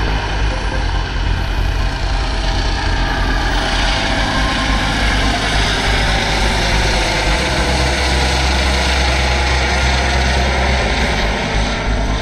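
Rescue helicopter flying close by: steady rotor and turbine noise with a low rumble, its whine dipping and rising in pitch as it moves.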